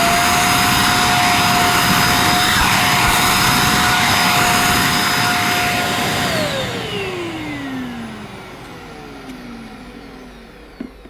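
EGL 600-watt mains-powered handheld vacuum cleaner running with a steady high whine. About six seconds in it is switched off, and the motor's whine falls in pitch and fades as it spins down.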